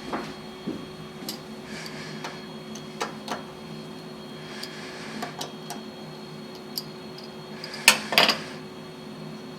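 CNC milling machine running with a steady hum and faint high whine, with scattered short clicks and taps and two louder sharp clicks about eight seconds in.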